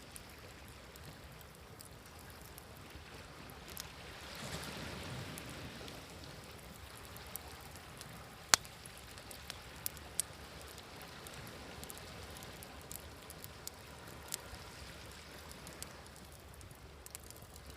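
Wood fire crackling with scattered sharp pops over the steady wash of sea waves. A wave swells up about four seconds in, and the loudest pop comes about halfway through.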